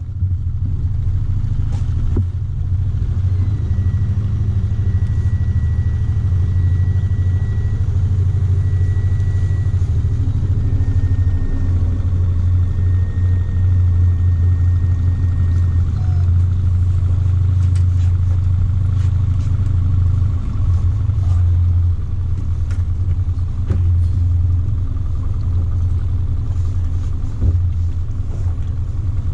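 Small kicker outboard motor running with a steady low rumble.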